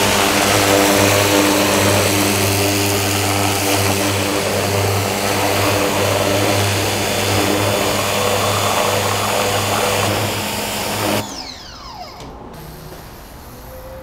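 Ryobi pressure washer running, its motor hum under the loud hiss of the water jet rinsing a car wheel. About eleven seconds in, the spray stops and the motor winds down with a falling whine.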